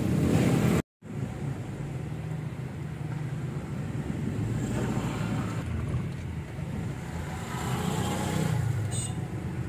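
Steady low engine and road hum heard from inside a car driving slowly, with a brief dropout about a second in.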